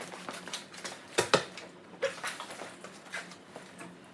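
Scattered knocks and rattles from a garage door being worked by hand, with two sharper knocks a little over a second in. The door is jammed and won't open: it has come off its rails.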